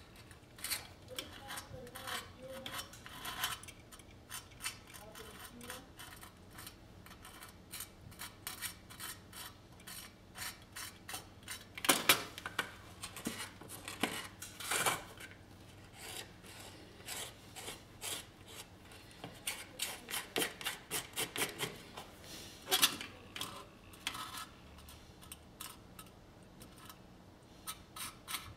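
Short, irregular scraping and tapping strokes of a small tool spreading epoxy filler onto a tinplate toy car body and scooping more of it off a plastic lid.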